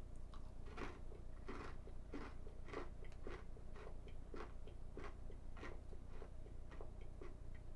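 A person chewing crunchy mini pretzel snacks (Cheetos Pretzels), with a steady crunch about twice a second.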